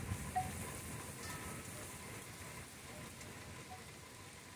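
Thunderstorm rain falling steadily, an even patter that slowly grows fainter.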